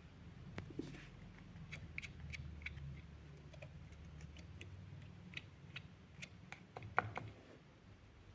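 A 1920s L. Dallemagne desk fan's brushed motor running with a steady low hum and irregular crackling clicks from the carbon brushes. The brushes are loud on a dirty commutator, the sign of bad brushes and a commutator needing cleaning.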